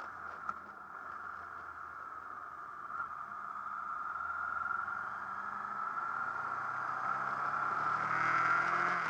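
Honda VFR800 VTEC's V4 engine running under way with steady wind and road noise; about seven seconds in, the engine note rises and gets louder as the bike accelerates.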